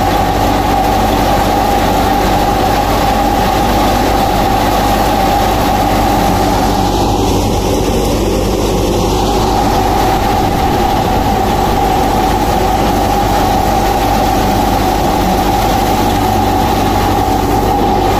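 Tractor-powered threshing machine running steadily while it threshes canola, a constant whine over a low engine drone.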